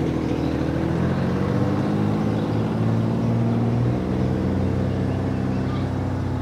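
A steady engine hum, its pitch stepping up and down a little a few times.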